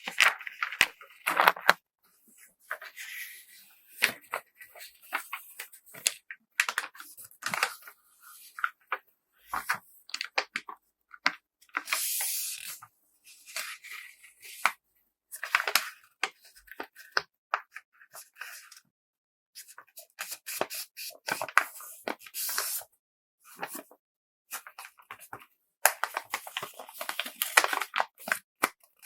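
Beads being packed by hand into small handmade tetra-pack containers: rustling and crinkling of the packing material and small clicks and clatters, in irregular short bursts with brief pauses.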